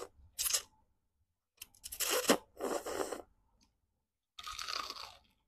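Close-miked eating: slurps of spicy instant noodles and crunching bites into crispy fried chicken, in four short bursts with silence between them.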